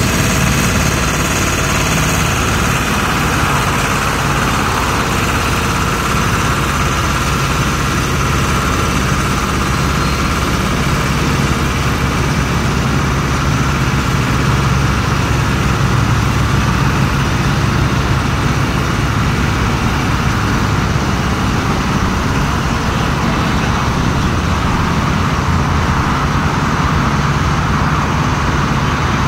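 Heavy haulage truck diesel engines running steadily, a low even engine note with no revving.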